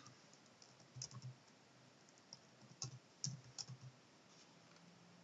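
Faint computer keyboard keystrokes: a couple of taps about a second in, another near the middle, and a short run of taps a little later.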